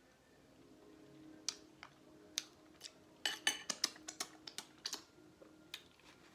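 Eating sounds of a seafood boil: a run of sharp clicks and smacks, starting about a second and a half in and thickest in the middle, as crab legs and shrimp are picked apart and eaten.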